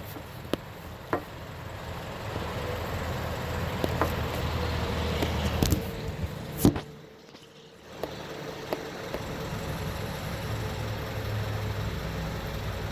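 Scattered knocks of a hammer striking a block of wood held against a BMW X3 rear drive axle, driving the axle bit by bit into its hole where it was not sitting fully home; the loudest strike comes a little past halfway. A steady low vehicle-like hum runs underneath.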